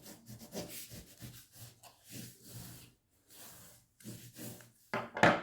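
Folded white card being burnished along its concertina creases: a series of soft rubbing strokes, a few seconds apart, pressing the folds tight. A louder thump near the end.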